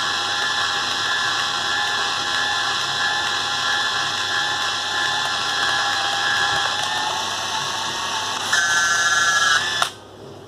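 Yashica T2's built-in motor rewinding 35 mm film into its cassette, a steady whine. About eight and a half seconds in its pitch shifts and it gets louder, then it stops suddenly just before ten seconds, the sign that the rewind has finished.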